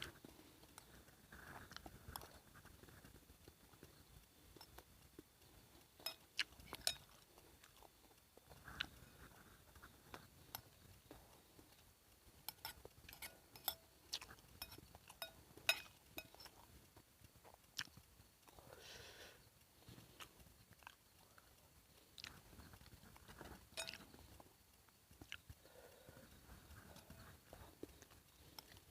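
A person eating quietly, chewing, with scattered sharp little clicks throughout.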